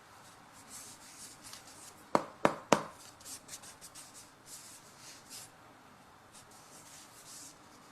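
Hands rubbing and handling a small object, with three sharp knocks or clicks in quick succession a little over two seconds in.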